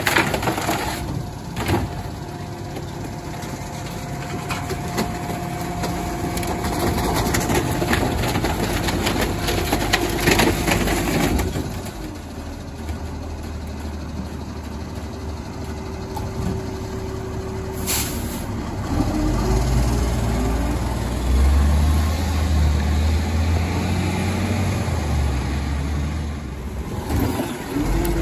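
Rear-loader garbage truck's compactor cycling: hydraulics whining steadily as the packer crushes hard waste in the hopper, with plenty of cracking for the first ten seconds or so. Then mostly the truck's engine running, growing louder for several seconds in the second half.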